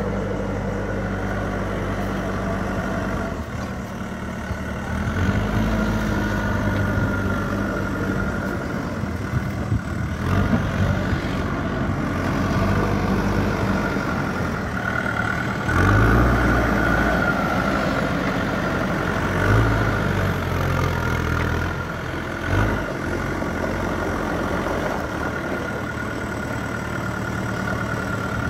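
JCB 3DX backhoe loader's diesel engine running under load while it carries a heavy concrete pipe in its front bucket, picking up speed in several short swells, the strongest about halfway through and again a few seconds later. A steady high whine runs underneath.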